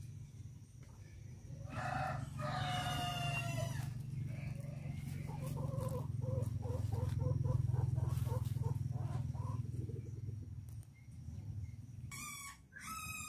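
A rooster crows, one call of about two seconds starting about two seconds in, followed by a run of short clucks at about two a second; another high call starts near the end. A steady low rumble runs underneath.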